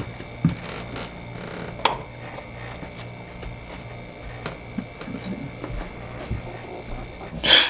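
Quiet bedroom with a steady low hum and a few sharp clicks, then near the end a sudden loud rustle of bed covers as a person gets onto the bed.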